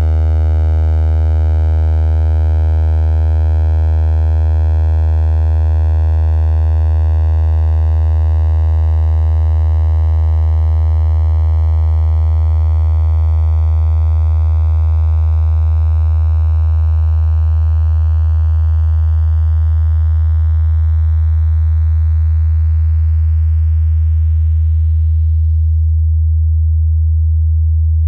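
Loud, steady low synthesized sine tone, a circle's outline turned into a waveform whose period follows its perimeter. A faint layer of higher overtones over it thins out and drops away about 25 seconds in, leaving the pure low tone.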